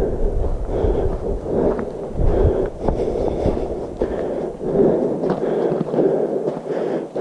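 A hiker's footsteps on a forest trail, heard close to a body-worn camera, with clothing and camera mount rustling at each step. A low wind rumble on the microphone dies away about five seconds in.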